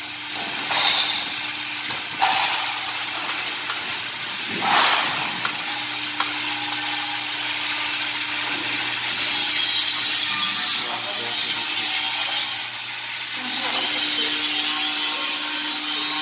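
Hydraulic press brake running with a steady hum while a 1.2 mm SUS 304 stainless steel sheet is bent on it. A loud hiss comes in about nine seconds in, breaks off briefly, and returns near the end.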